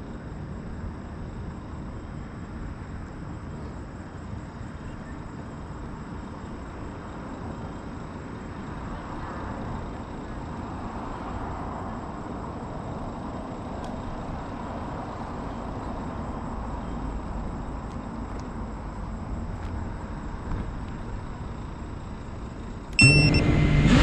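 Steady low outdoor rumble, then about a second before the end an FPV quadcopter's motors start up suddenly and loudly with a wavering whine.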